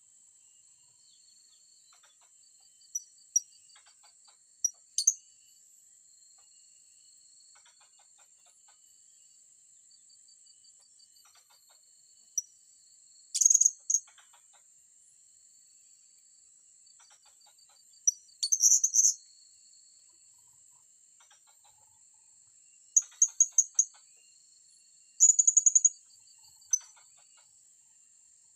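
Blue-crowned hanging parrots (serindit) giving short, sharp, very high-pitched calls, singly and in quick runs of several, every few seconds. Underneath runs a steady high insect hiss with a faint pulsing cricket trill.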